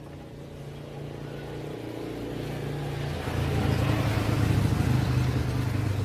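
A 110cc motorbike engine running steadily at an even pitch, growing louder, loudest in the second half.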